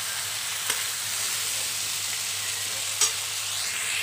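Stuffed whole white brinjals sizzling steadily in hot oil in a kadhai as they are sautéed, with a metal spatula knocking against the pan twice, sharply, about a second in and near the end.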